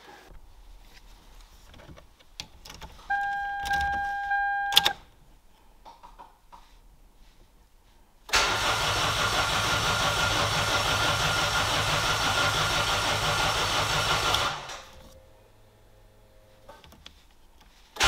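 Starter cranking a Toyota 2ZZ-GE 1.8-litre inline-four for about six seconds without it firing. The injectors are unplugged, so the engine turns over only to build oil pressure after the swap. A short steady beep sounds about three seconds in, before the cranking.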